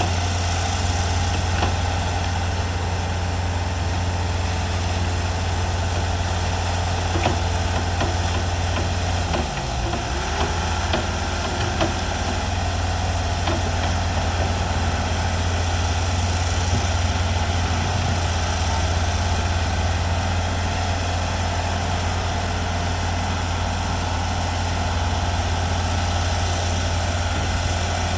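Heavy construction machinery running: a steady low engine drone that briefly dips in pitch and recovers about ten seconds in.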